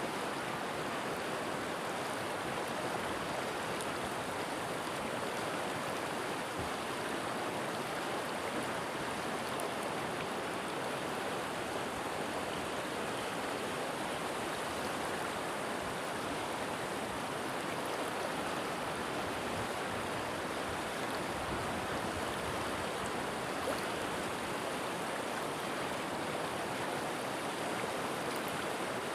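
River water flowing in a steady, even rush, with no breaks or changes.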